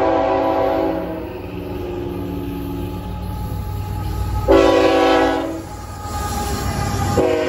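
A CN diesel freight locomotive's air horn as the train approaches and passes: a held blast that ends about a second in, a short loud blast about two-thirds of the way through, and another blast starting near the end. Under it runs the low rumble of the locomotives and wheels on the rails, growing as the train draws level.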